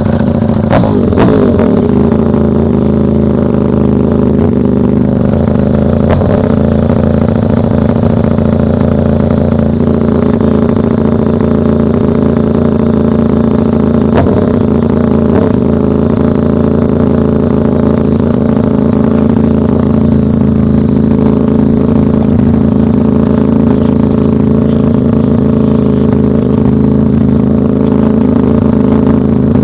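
Motorcycle engine running steadily and loud, close to the microphone, with a brief shift in engine pitch about a second in.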